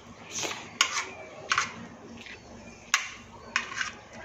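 Metal spoon clinking and scraping against a ceramic plate while eating: a handful of short, sharp clinks at irregular intervals.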